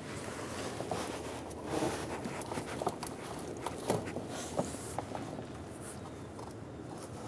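Faint plastic handling noise and a few light clicks as a gloved hand presses the push-button release on the fog light's wiring connector and pulls the connector off the fog light.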